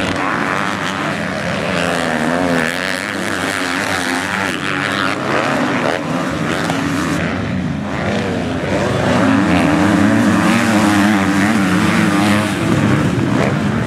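Motocross bike engines racing on a dirt track, revving up and down through the gears. One bike gets louder from about nine seconds in.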